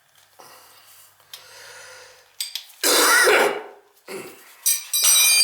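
A man clears his throat loudly about three seconds in, between small metal clinks of tools and burner parts being handled, with a sharp ringing metal clink near the end.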